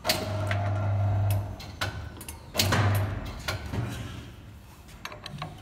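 Electric paper cutter's drive humming in two short runs, each starting with a click: the first lasts about a second and a half, the second is shorter and comes about two and a half seconds in. Light metallic clicks fall between them.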